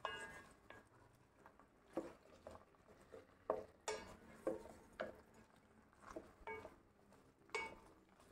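Spatula stirring sliced okra in a stainless steel pot: irregular light knocks and scrapes against the metal, a few with a brief ring from the pot.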